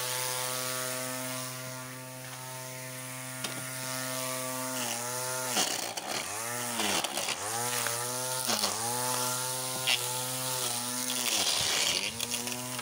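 Small electric string trimmer with its motor in the cutting head, running with a steady whine as the nylon line cuts grass. In the second half its pitch dips and picks back up several times.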